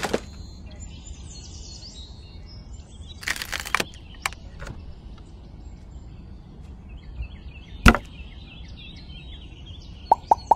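Small plastic strips and rails being handled and set down on sand: a short clatter at the start, a rustle about three and a half seconds in, and a sharp knock near eight seconds. Near the end a quick, even run of clicks begins, about three a second.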